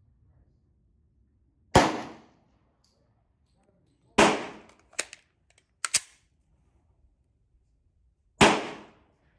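Staccato P pistol fired three times, a couple of seconds apart, each shot a sharp crack that dies away over about half a second. Two fainter, shorter cracks fall between the second and third shots.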